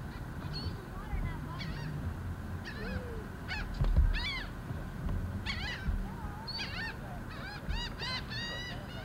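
Birds honking: many short, arched calls in quick groups, over a low rumble, with one low thump about four seconds in.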